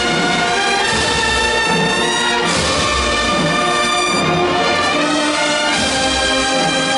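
Brass band playing a Holy Week funeral march: long, held brass chords over low, recurring drum beats.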